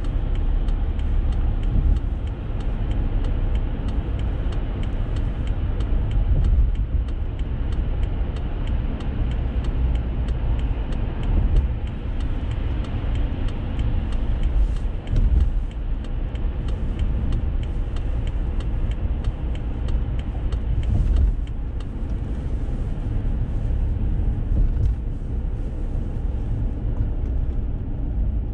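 Steady road noise inside a moving car: a continuous low rumble of tyres and engine at cruising speed.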